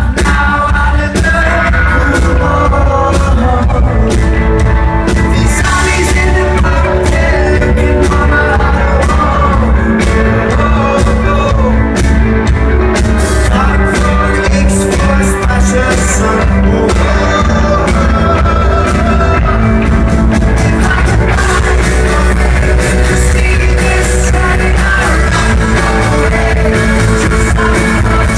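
Live rock band playing a song with lead vocals, loud and steady with heavy bass and a continuous drum beat.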